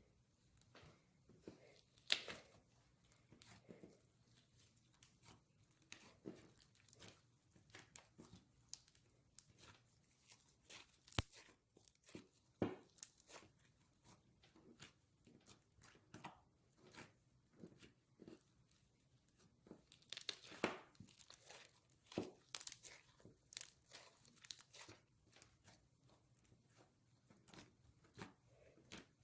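Slime being kneaded and squished by hand with confetti mixed in: faint, irregular wet clicks, pops and crackles, with a few sharper pops scattered through.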